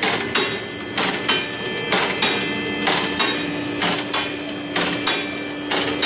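Car lift going up: its pump motor hums steadily while the safety locks click about twice a second, and the motor cuts off at the end.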